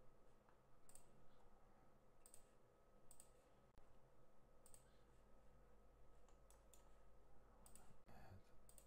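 Computer mouse clicking: sharp single and paired clicks about a second apart, faint over near-silent room tone.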